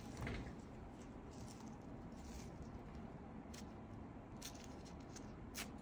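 Quiet room tone with a few faint, short clicks and rustles from gloved hands handling the waxing materials.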